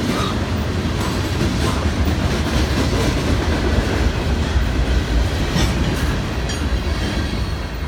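Freight cars of a long freight train rolling past: a steady, loud rumble of steel wheels on the rails, with faint clicks as wheels cross rail joints.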